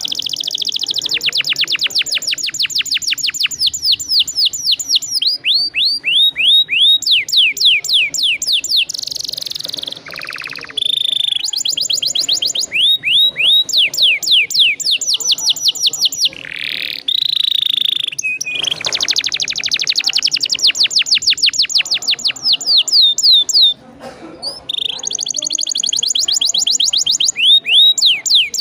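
Domestic canary singing long rolling trills: fast runs of repeated down-sweeping notes, each run shifting pitch and pace, with brief breaks between phrases.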